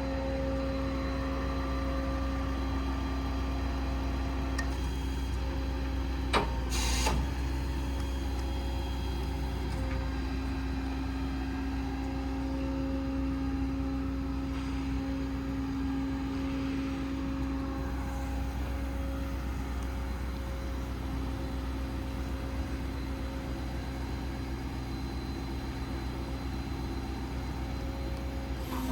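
Diesel truck engine running steadily with a steady hum, as for driving the hydraulic crane. A sharp click and a short rush of noise come about six to seven seconds in.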